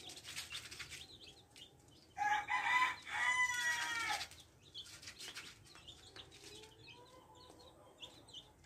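Month-old black chicks of an Indonesian black breed peeping in a cardboard box, with short high peeps throughout. About two seconds in comes a much louder two-part chicken call lasting about two seconds.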